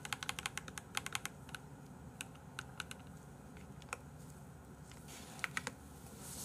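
Faint light clicks: a quick run of about a dozen in the first second and a half, then a few scattered ones, and a short cluster near the end.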